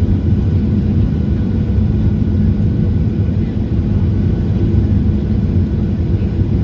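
Steady low rumble of a Boeing 737-900 in flight or on the ground, its CFM56 jet engines and airflow heard from inside the passenger cabin, with a faint high whine above the rumble.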